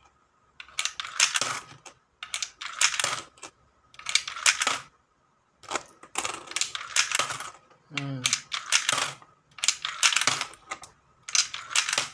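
New five-peso coins are fed one at a time into a universal multi-coin acceptor as calibration samples. Each one drops through the mechanism with a metallic clatter, about one every one and a half seconds.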